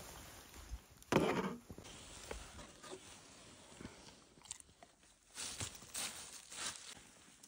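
A German shepherd crunching a square cracker, three crisp bites a little over half a second apart in the second half. It follows a louder short clatter of a glass jar being handled about a second in.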